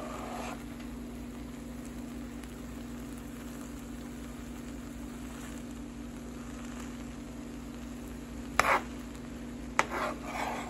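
Yellow rice with steak pieces being stirred and turned in a pan with a slotted spatula, with a faint sizzle over a steady low hum. Near the end the spatula knocks sharply against the pan twice, with a scrape of rice after each.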